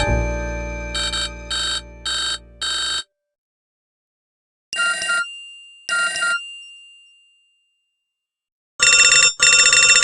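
Nokia 7360 ringtones and alert tones played one after another. An electronic melody ends on a held, fading note and is followed by four short repeated beeps. After a pause come two chiming notes that fade out, and near the end a two-pulse electronic ring.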